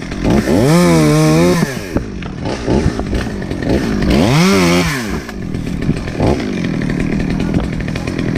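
Chainsaw revved to full throttle twice, each time held for about a second before dropping back to a lower run.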